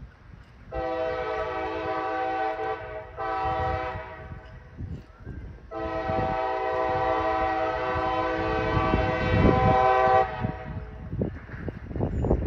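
CSX diesel locomotive's air horn sounding three blasts: long, short, then a longer one. Low rumbling runs underneath and grows toward the end.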